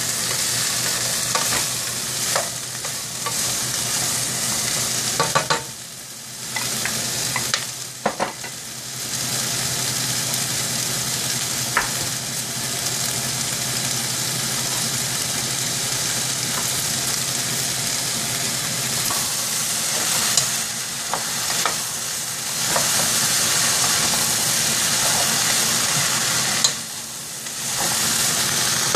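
Diced onion sizzling in hot oil in a stainless steel saucepan, stirred with a wooden spoon, with occasional light knocks of the spoon against the pan. The sizzle drops briefly twice, about six seconds in and near the end.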